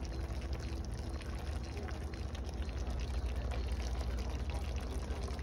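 Ground beef and sausage sizzling and simmering in their own fat and juices, a steady crackle of small pops over a constant low hum.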